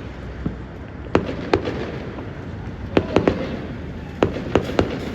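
Fireworks going off: a series of sharp bangs in small clusters, about eight in all, over a steady background hiss.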